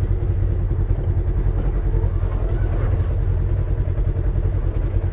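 Polaris RZR side-by-side's parallel-twin engine running at low speed while crawling down a rocky trail: a steady, low, even engine rumble.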